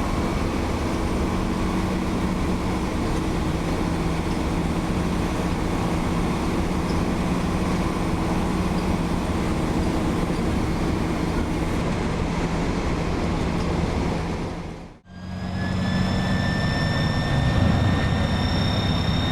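Turbocharged diesel engine of an Iveco 170S28 coach running at cruising speed, a steady drone heard from inside the bus. After a brief drop-out about three-quarters of the way through, a shrill, high turbo whistle rises slightly and holds. The turbo noise is put down to a turbo problem the bus has had since it left the factory.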